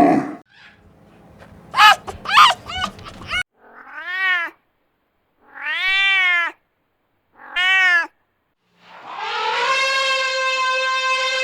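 Cat meowing: a few short mews, then three separate drawn-out meows that rise and fall in pitch. Near the end a long, steady call from a different animal begins.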